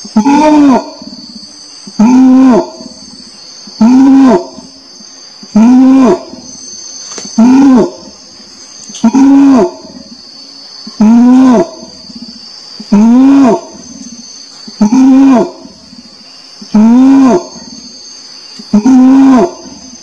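Orangutan calling: a short, deep call that rises and falls in pitch, repeated about every two seconds in an even rhythm, about eleven times. A steady high buzz, like insects, runs behind it.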